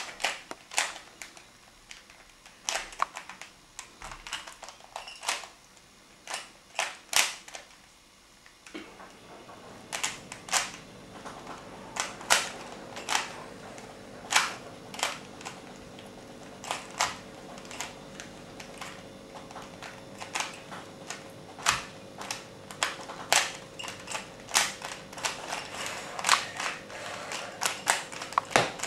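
Rubik's cube being turned during a solve: a steady run of irregular plastic clicks and clacks as the layers snap round. From about nine seconds in a faint steady hum joins underneath.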